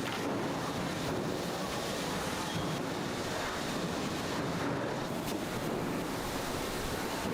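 Steady rushing noise at an even level, with a few faint clicks.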